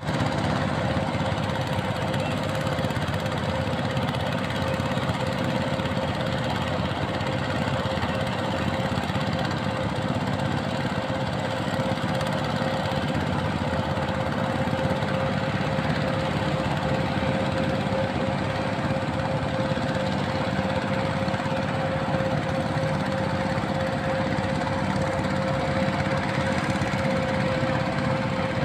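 Walk-behind hand tractor's engine running steadily as it plows a rice paddy, with a constant high hum through the low engine drone.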